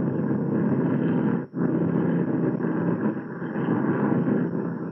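Radio-drama sound effect of propeller aircraft engines droning steadily as the plane makes a low pass. The sound briefly cuts out about a second and a half in.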